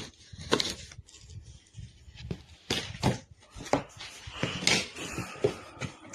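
Irregular knocks, clatter and short rustling scrapes of objects being handled, a dozen or so uneven hits over a few seconds.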